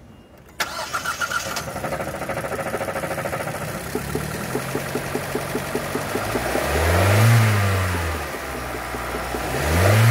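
2020 Hyundai Kona's DOHC 16-valve four-cylinder petrol engine cranking briefly and starting about half a second in, then idling. It is revved twice, the pitch rising and falling about seven and ten seconds in.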